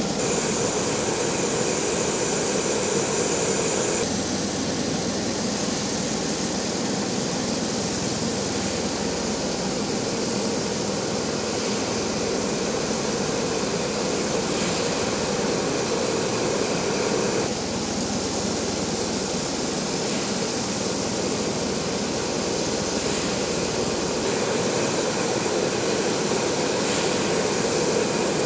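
CV-22 Osprey tilt-rotor aircraft running, a steady dense noise of turbine engines and proprotors that changes in character a few times.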